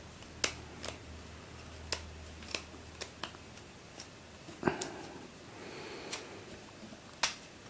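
Plastic Brainball puzzle being forced round by hand: a string of about ten sharp, irregular plastic clicks as the ring and numbered tiles snap from position to position. The ring is very stiff and can barely be turned.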